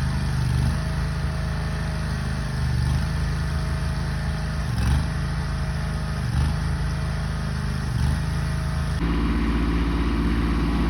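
Engine running steadily, with a few brief swells. About nine seconds in, the engine sound changes abruptly to a different, fuller hum.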